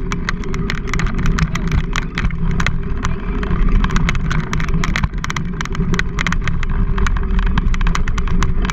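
Bicycle rolling over a dirt road: the tyres crunch and the frame rattles in many sharp clicks, over a steady low rumble of wind and road on the camera mount.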